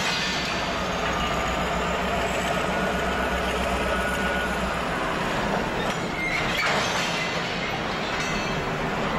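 N-scale model freight train running on its track: a steady motor hum and the rumble and clatter of the small wagon wheels on the rails, with a brief high squeal about six seconds in.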